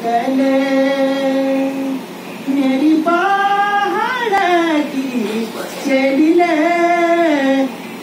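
A man singing unaccompanied in a high voice, holding long notes with gliding, ornamented turns, with short breaths between phrases about two seconds in and near the end.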